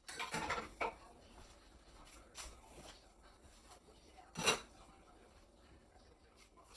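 Kitchen handling noises: a short clatter and rustle ending in a click, then a single sharp knock about four and a half seconds in, like a cupboard door or a utensil set down.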